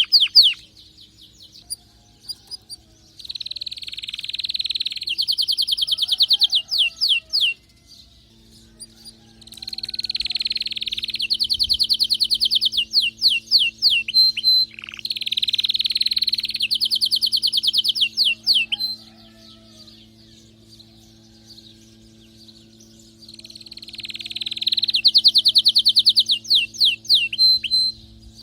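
Domestic canary singing excitedly, as a male in breeding condition does: four long song phrases of fast, rapidly repeated high trills, each a few seconds long, with short pauses between them.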